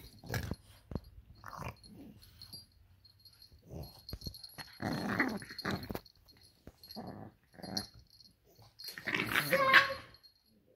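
A pet dog making short vocal sounds in irregular bursts, the loudest and longest near the end.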